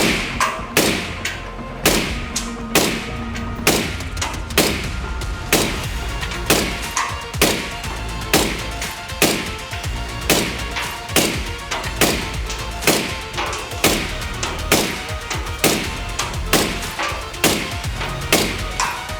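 Suppressed 5.56 NATO rifle firing through a B&T Print-X SRBS-Ti 3D-printed titanium suppressor at a steady one shot a second, about twenty shots. This is a sustained-fire heat endurance test of the suppressor.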